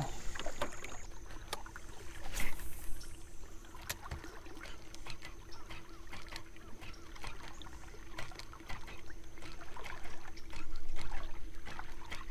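Water lapping and trickling against a canoe hull, with scattered light clicks and knocks of fishing gear and a louder knock about two seconds in, over a faint steady hum of an electric trolling motor.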